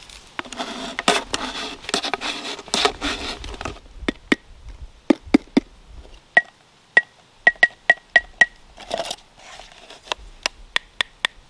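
Handling and scraping noise for a few seconds, then a home-made wooden marimba bar tapped again and again, each tap a short woody knock. Several quick taps carry a brief ring at the same pitch as the bar is tried for its note.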